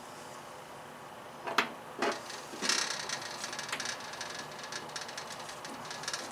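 Hands working wiring and a plug connector in an aluminium diamond-plate battery box: two sharp knocks about a second and a half in, then a stretch of rustling with fine crackles that eases off near the end.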